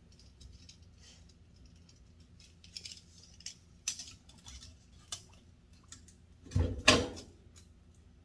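Hand tools being handled while marking out: scattered light clicks and rattles, then two loud knocks close together about seven seconds in.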